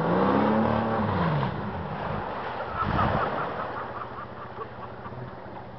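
A 4x4's engine revved hard, its pitch falling away about a second and a half in, as the truck plunges into a deep water-filled mud hole with a loud splash of water about three seconds in. The engine stalls as it hits the water, leaving a quieter wash of water noise.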